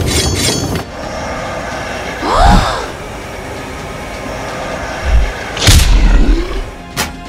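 Cartoon battle sound effects over a steady background. A short swooping sound comes about two seconds in. Then there is a thud and a loud boom with a low rumble between five and six seconds in, and a sharp crack near the end.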